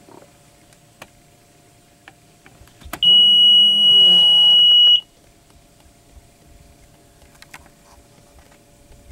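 Boat dashboard warning buzzer giving one loud, steady, high-pitched beep for about two seconds, right after a click, as the ignition is switched on and the gauges power up: the key-on self-test of the MerCruiser engine's warning system.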